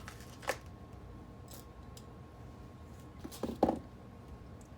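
A sharp click, then a short cluster of clicks and a brief rattle about three and a half seconds in, as a piece of model railroad track is worked loose and pulled out.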